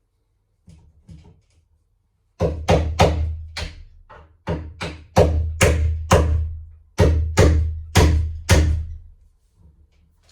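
A hammer striking a wood chisel, chopping a recess into the edge of a wooden door for a tubular latch. A few light taps come first, then about fifteen sharp blows in short runs.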